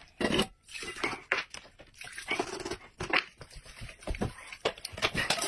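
Noodle eating close to the microphone: noodles handled in a metal bowl with chopsticks and eaten, in a series of short, irregular noises.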